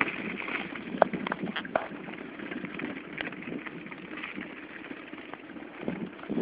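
Footsteps crunching on packed snow at a walking pace, with a few sharp clicks between one and two seconds in.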